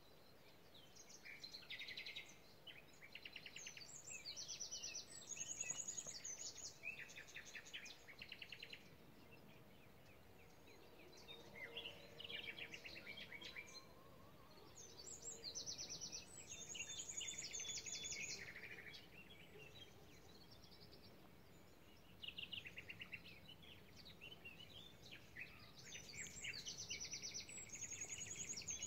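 A songbird singing in three long bouts of rapid trills and twittering phrases, with short pauses between them.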